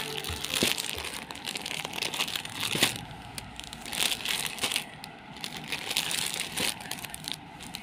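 Clear plastic garment packaging crinkling as wrapped packets are picked up, flipped and slid over one another. The sound comes in irregular rustles and sharp crackles.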